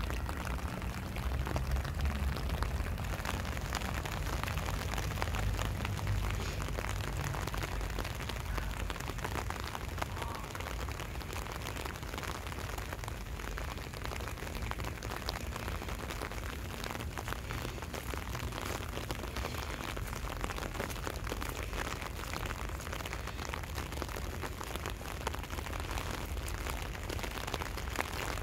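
Rain falling steadily, with many small drop ticks in an even hiss, over a low rumble that is strongest in the first several seconds.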